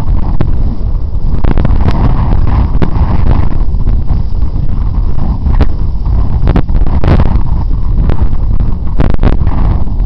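Wind buffeting the microphone as a steady low rumble, with scattered knocks and rattles from a mountain bike jolting over a rough, rutted grass track, bunched about seven seconds in and again near the end.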